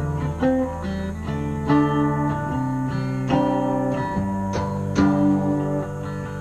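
Guitar playing: plucked single notes and short runs ringing out over a sustained low bass line.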